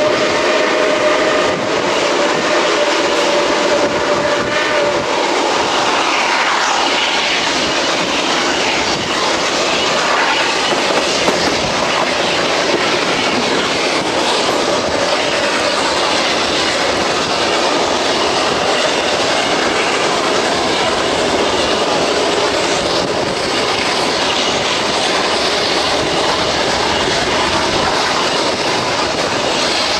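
Steam-hauled excursion train running on the track, heard from aboard beside a coach: a steady, loud running noise of wheels on rails. A steady tone sounds through the first five seconds or so, then fades out.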